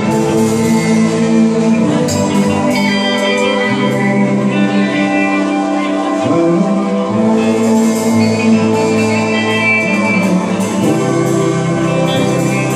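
Live pop-rock band playing amplified electric guitars, bass guitar and drums.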